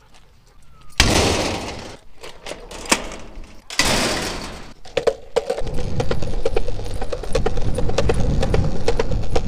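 Two loud clattering crashes, about a second in and again near four seconds, each dying away over a second; then a longboard's wheels rumbling steadily on a concrete path, with a quick run of sharp clicks, a few a second, as a husky on a leash pulls the board along.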